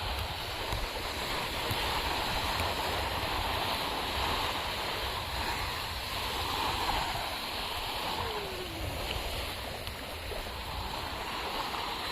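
Sea surf washing onto a beach: a steady rush of water that swells and falls back, strongest about four and six and a half seconds in, with a low rumble underneath.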